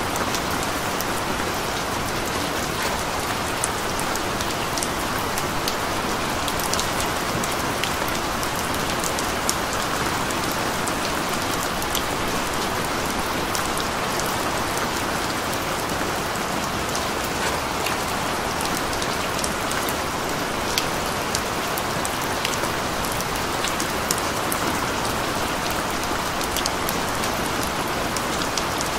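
Steady rain falling, an even hiss with scattered sharp ticks of individual drops landing.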